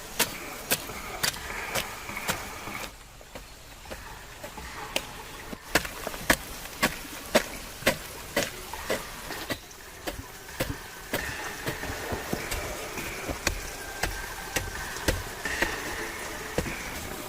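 Knife chopping on a cutting board in sharp, even strokes about two a second, pausing for a couple of seconds about three seconds in before carrying on.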